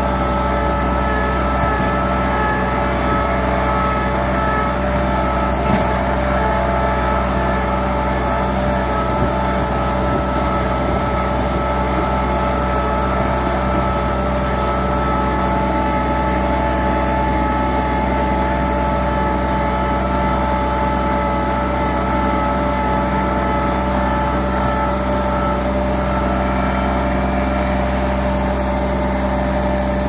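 Compact tractor's engine running steadily at a constant speed with a steady whine over it, while the tractor pushes snow with its front loader.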